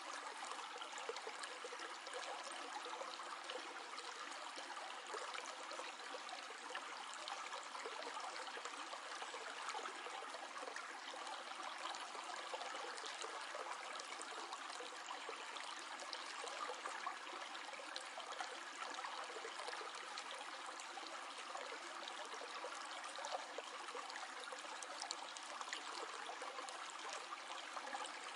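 Flowing water, like a small stream, trickling and rushing steadily, full of tiny splashes, with no deep rumble underneath.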